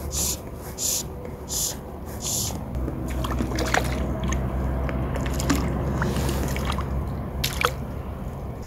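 Fly line stripped in hand over hand, a quick swish every half second or so, then a hooked chub splashing and thrashing at the water's surface right beside the float tube, with sloshing and dripping water.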